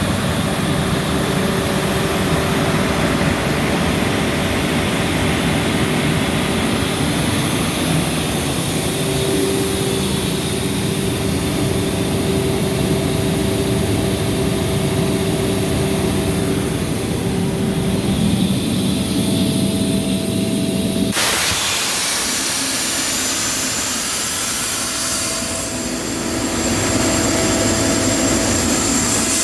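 Atlas Copco XAS 950 diesel portable air compressor running steadily. About two-thirds of the way through, a loud hiss of escaping air starts suddenly and carries on over the engine.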